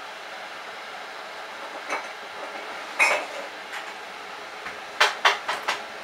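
Bosch Logixx WAS32461GB washing machine's drum turning a small wet load during the early stage of an Easy Care wash: a steady hum, with sharp knocks as the load tumbles, a loud one about three seconds in and four in quick succession near the end.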